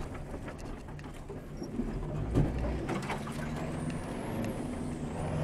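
Rally car engine running steadily while driving on a rough dirt track, heard from inside the cabin, with scattered knocks and rattles and one heavy thump a little over two seconds in.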